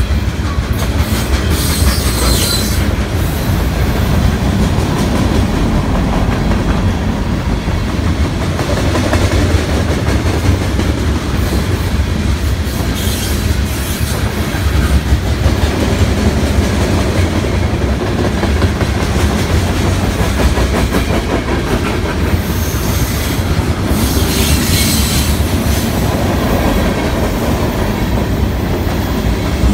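BNSF freight train of tank cars rolling past close by: a steady rumble with the clickety-clack of wheels over rail joints. Brief high wheel squeals come through a few times.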